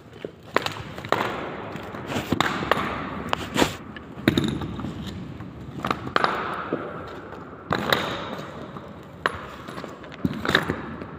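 Irregular footsteps crunching and scraping over a debris-strewn floor, with a dozen or so sharp knocks and clinks, some ringing briefly, from loose round metal parts underfoot.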